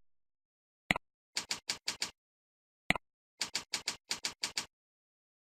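A single click, then a quick run of about six computer keystrokes, then another single click and a run of about eight keystrokes: a mouse clicking into a form field and a username and then a password being typed on a keyboard.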